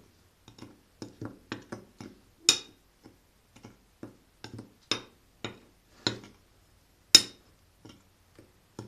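A spoon clinking and tapping against a dish while stirring dry cookie ingredients with cocoa: irregular light clicks with a few louder knocks.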